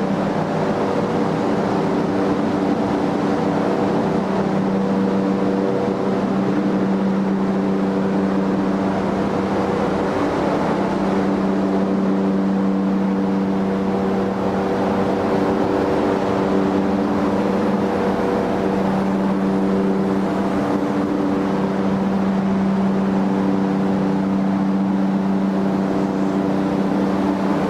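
A steady motor or machine hum that holds one constant pitch with a few overtones, over an even rushing noise.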